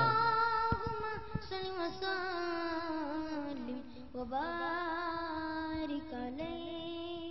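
A boy's solo voice, amplified through a microphone, sings a slow Islamic devotional melody. He holds long notes that glide between pitches, without accompaniment.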